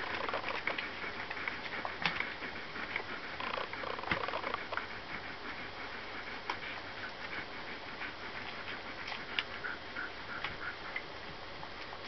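Borzoi puppies nursing from their mother: a busy run of small wet suckling clicks and smacks, with a few brief high squeaks.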